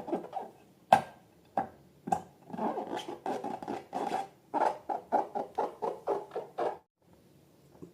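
Slime being worked by hand: a run of short squishing sounds, irregular at first, then about four a second, stopping about a second before the end.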